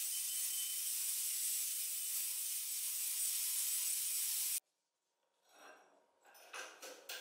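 Angle grinder's abrasive disc grinding rust off an antique iron scissor blade: a steady high hiss that cuts off suddenly about two-thirds of the way through. A few light knocks and clinks follow near the end as the blade is handled in a bench vise.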